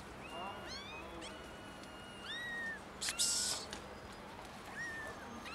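Young kittens meowing loudly over and over in high, thin cries, some rising and some arching in pitch. A short hissing burst about three seconds in is the loudest sound.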